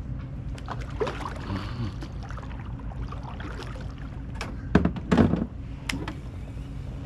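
Light clicks and knocks, then two loud thumps about five seconds in, from a plastic fishing kayak and the gear on it, over a steady low hum.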